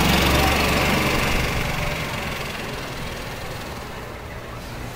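A golf cart's small engine running as it passes close by, loudest at first and fading away over the first couple of seconds.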